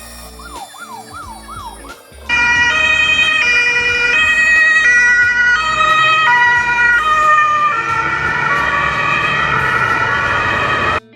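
Electronic toy ambulance siren. A few quick, fainter sweeping whoops come first. Then, about two seconds in, a loud two-tone siren starts alternating between a high and a low note about every 0.6 seconds. Near the end it changes to a wavering multi-tone pattern and cuts off suddenly.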